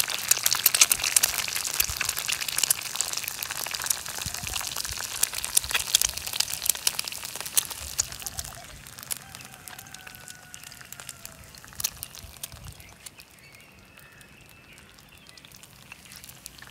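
An egg frying in oil in a cast iron pan, spitting and crackling, the crackle thinning out and getting quieter after about eight seconds.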